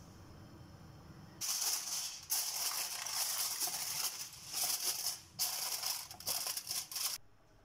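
Aluminium foil crinkling and rustling as a sheet is handled and pressed down over a glass baking dish. It starts about a second and a half in as a string of loud bursts and stops shortly before the end.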